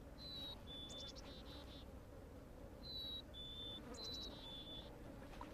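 A small songbird singing: a clear two-note whistle, the first note slightly higher than the second, given three times, with short buzzy notes after the first and third, over faint low background noise.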